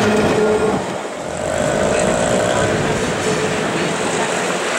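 An old Milan 'Ventotto' tram passing close by, its running gear and motor humming steadily on the rails. About a second in this gives way to general city street traffic noise.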